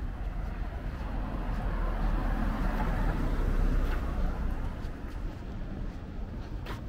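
A road vehicle passes by: its tyre and engine noise swells to a peak about three and a half seconds in, then fades, over a low traffic rumble.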